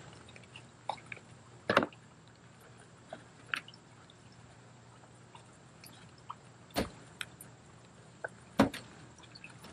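Potting soil being scooped with a small trowel and pressed by hand around a pothos cutting in a plastic nursery pot set in a plastic tub: faint rustling with a handful of short sharp knocks and taps, the clearest about two, seven and nine seconds in.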